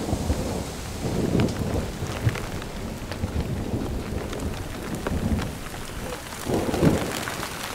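Rain falling with scattered drop taps, under low rumbles of thunder that swell and fade about a second in and again, louder, near the end.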